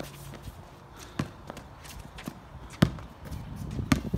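Basketball bouncing on a concrete driveway: a few sharp, scattered bounces, the loudest about three seconds in.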